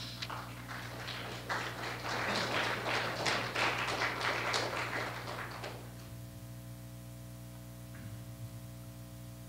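Audience applauding, a dense patter of many claps that dies away about six seconds in. After that only a steady electrical hum remains, with one faint tap near the end.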